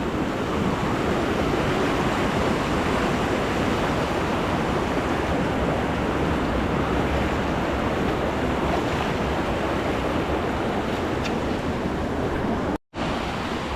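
Rushing water: a steady, even noise with no distinct events, cutting out briefly near the end.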